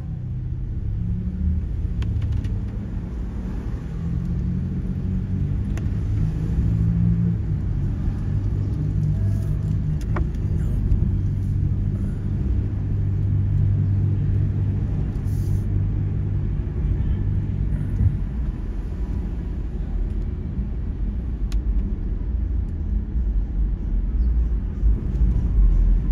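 Steady low rumble of a motor vehicle, with an engine-like hum that drops away about two-thirds of the way through, leaving a deeper rumble that grows louder near the end.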